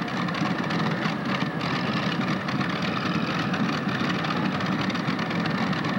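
Multi-engine modified pulling tractor idling after its run, its engines running steadily with a rough, even sound.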